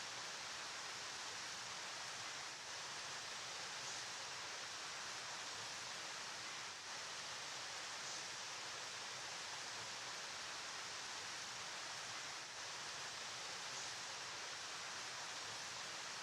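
River water flowing: a steady, even rushing hiss with no distinct splashes or changes.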